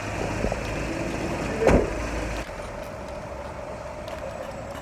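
A van's engine running close by, with a single loud slam a little under two seconds in as the van's sliding door is shut; the low engine rumble then drops away as the van pulls off, leaving a steadier, quieter street hum.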